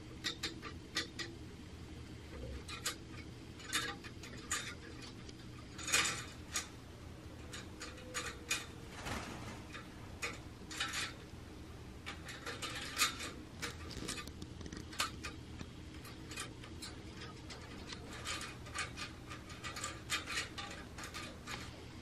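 Pet American crows and a magpie making scattered short clicks and ticks, some in quick clusters, with one longer, fuller sound about nine seconds in.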